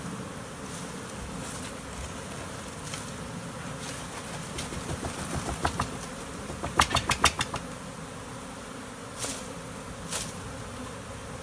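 A large honeybee swarm buzzing steadily as it is worked into a hive box, with a quick run of sharp clicks about two-thirds of the way through and two more single clicks near the end.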